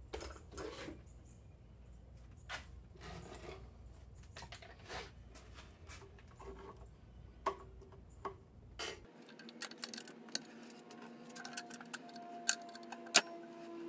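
Light metallic clicks and clinks of hand tools and small metal parts being handled while a unit is unscrewed and taken apart. A low background hum stops about nine seconds in.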